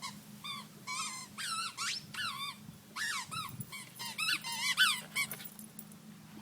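Squeaky dog toy squeaked over and over as a dog bites on it: a quick, irregular run of short high squeaks that stops about a second before the end.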